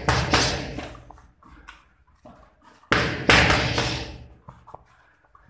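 Boxing gloves smacking against focus mitts in quick combinations: a cluster of sharp hits at the start and another about three seconds in.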